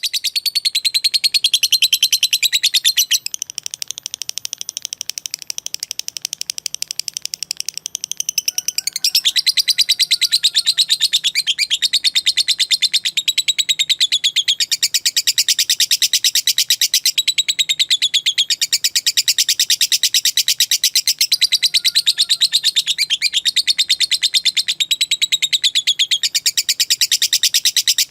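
Lovebird giving a long, unbroken rapid chatter: the fast, typing-like 'ngetik' clicks running into an extended 'ngekek' trill of high, evenly spaced pulses. It goes quieter from about three to eight seconds in, then picks up loud again.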